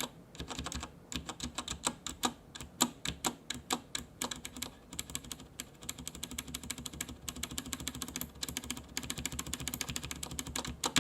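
Backspace key on a Corsair K63 mechanical keyboard with Cherry MX Red switches, pressed over and over in a fast run of sharp clicks. The key gives a click that a linear Red switch should not have, which is taken for a clear defect.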